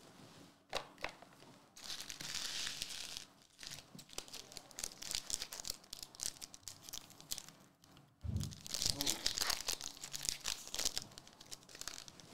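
Foil trading-card pack wrappers crinkling and being torn open by hand, in several crackling bursts; the loudest comes near the end, starting with a soft thump about eight seconds in.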